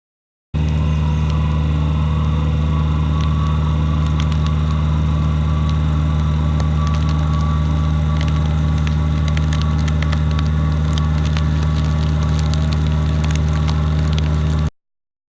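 Kubota KX057 compact excavator's diesel engine running steadily, with scattered sharp crackling and cracking of wood as the Baumalight RSX stump planer grinds into a pine stump. The sound cuts in about half a second in and stops abruptly near the end.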